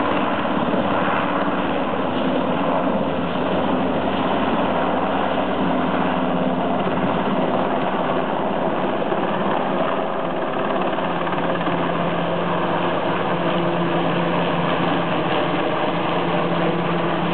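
Rescue helicopter running steadily, a loud continuous engine-and-rotor drone; its hum shifts lower about eleven seconds in.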